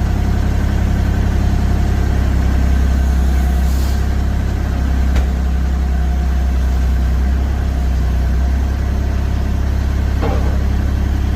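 Excavator's diesel engine running steadily, its note shifting between about three and nine seconds in, with a single sharp click about five seconds in.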